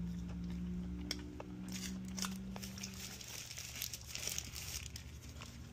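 Paper wrapper of a burrito crinkling and rustling in the hand, in bursts of small clicks and rustles from about two seconds in to past four seconds. A low steady hum runs through the first three seconds.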